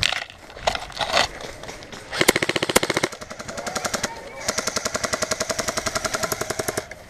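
Electric airsoft rifle firing on full auto in rapid bursts: a short loud burst about two seconds in, then a longer burst of over two seconds with a steady motor whine under the shots.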